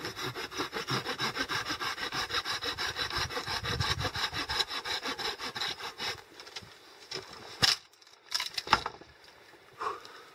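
Silky Gomtaro pruning saw cutting through a dead branch with quick, even strokes, about four a second, stopping about six and a half seconds in. A couple of sharp knocks follow near the end.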